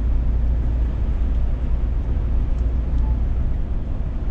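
Cab interior of a Scania S500 truck cruising at road speed: a steady low engine drone with tyre and road noise.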